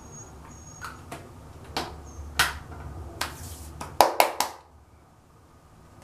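Sharp clicks and taps from handling skincare or makeup containers, with a brief hissing rub in the middle and three quick loud clicks about four seconds in.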